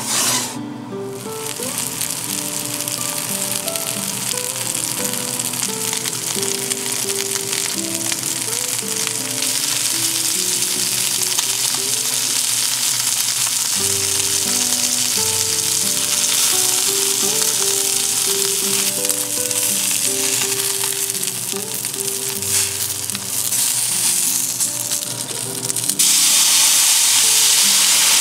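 Meat-stuffed fried tofu puffs sizzling in oil in a cast-iron skillet, a steady frying hiss. About two seconds before the end, sake is poured into the hot pan and the hiss jumps louder as it boils off in steam. Background music plays underneath.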